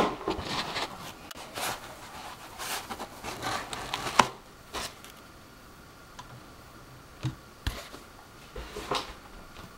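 Handling noise as a graphics card is worked out of its anti-static foam packing: scraping and rustling against the foam with scattered clicks. It thins out to a few light knocks and clicks in the second half.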